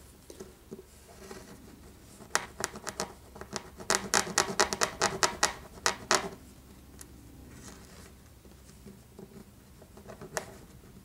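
Small metal file scraping across a tiny wooden model-railway tie, widening its notch so a rail joiner will fit. A quick run of short file strokes from about two to six seconds in, then a couple more near the end.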